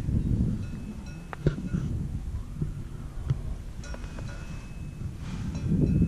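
Wind noise on the microphone of a rider on an open chairlift, growing louder near the end, with a few sharp metallic clinks and faint, steady bell-like ringing.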